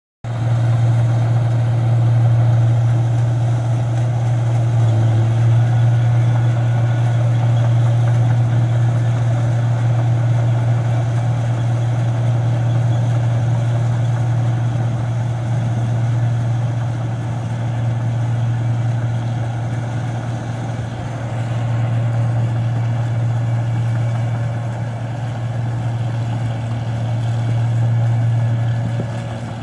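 New Holland combine harvester running steadily as it cuts and threshes rice, a loud, even low engine drone with only gentle swells in level.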